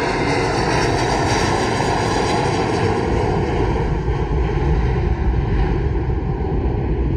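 Airbus A320 airliner's twin jet engines at takeoff power: a loud, steady roar with a deep rumble. The higher whine fades over the second half while the low rumble stays strong.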